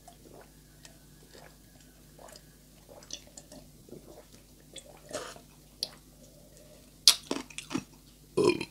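Close-miked gulping and swallowing as juice is drunk from a glass mug, with small mouth and glass clicks. There is a sharp click about seven seconds in and a louder rush of noise near the end.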